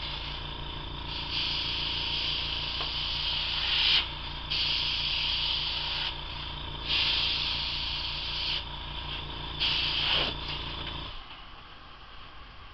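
Airbrush compressor running with a steady hum while the airbrush sprays in hissing bursts of one to three seconds, about four times as the trigger is pressed and released. The compressor hum cuts off suddenly near the end.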